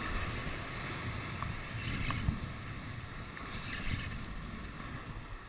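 Sea surf surging and washing over shoreline rocks, swelling and easing, with wind buffeting the microphone as a low rumble.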